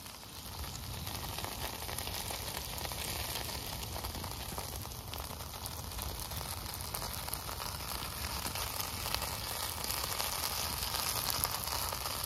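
Four burger patties sizzling steadily in a non-stick frying pan held over a wood campfire, with small crackles running through the hiss; the sizzle gets slightly louder in the second half.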